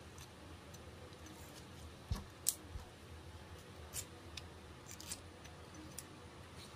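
Small kitchen knife cutting grooves into a peeled pineapple to take out the eyes: scattered crisp clicks and scrapes of the blade in the firm flesh, the loudest about two and a half seconds in, just after a dull knock.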